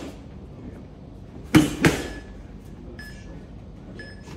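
Two punches landing on boxing focus mitts in quick succession, a one-two about a quarter second apart, each a sharp hit.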